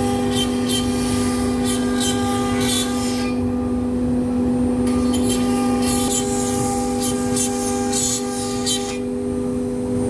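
CNC machine cutting a partition panel: a steady, whining spindle tone with repeated bursts of hissing cutting noise that pause briefly twice.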